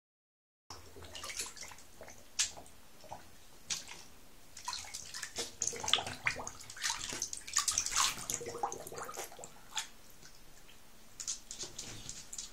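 Scottish terrier blowing bubbles into shallow bathwater with her muzzle under the surface: irregular short bubbling and splashing sounds, coming thickest in the middle.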